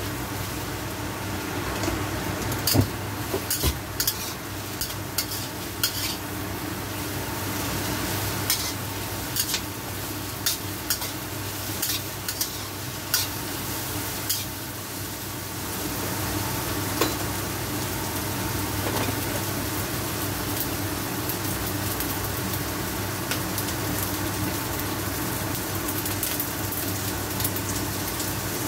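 Sliced red bell pepper and onion sizzling steadily in hot oil in a wok, stir-fried with a metal spatula that scrapes and clinks against the pan. The clinks are frequent through the first half and die away after about fifteen seconds, leaving only the sizzle.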